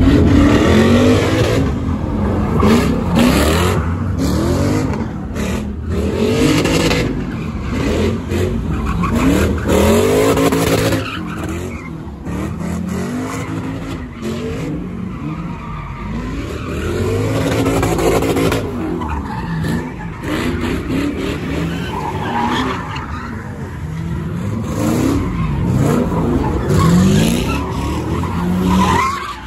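Cars doing donuts on asphalt: engines revving up and down over and over while the tyres screech and skid.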